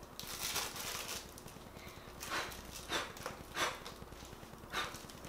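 Homemade slime being stretched and worked by hand, giving a series of short sticky squelches and crackles, about six of them at irregular intervals.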